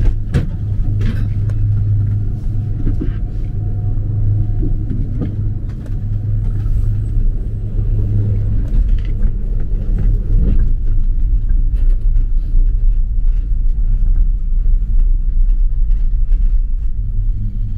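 Steady low rumble and hum of a detachable gondola cabin, heard from inside, as it rolls through the station and out onto the cable. A few light knocks come through the rumble.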